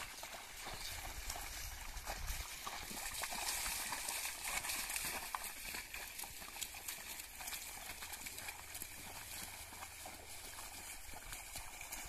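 Two bullocks pulling a wooden plough through a flooded paddy field, their hooves splashing and squelching in the mud in an irregular run of wet steps.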